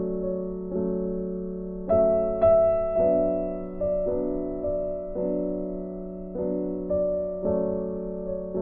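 Soft background piano music: chords struck about once a second, each fading away, over a held low note.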